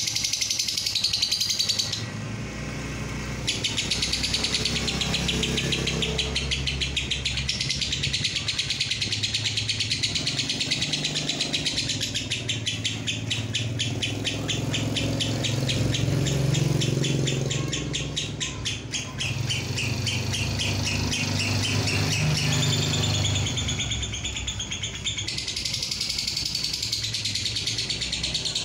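Fischer's lovebird giving its long 'ngekek' chatter: a fast, almost unbroken run of high notes that pauses briefly about two seconds in, over a low steady hum.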